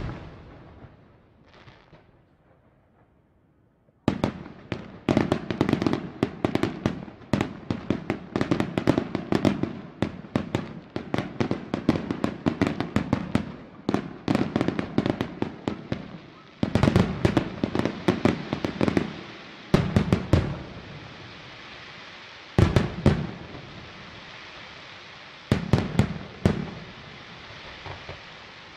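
Aerial fireworks display: one sharp bang at the start, then from about four seconds in a dense, rapid barrage of shell bursts and crackle lasting some twelve seconds, followed by groups of bangs every few seconds.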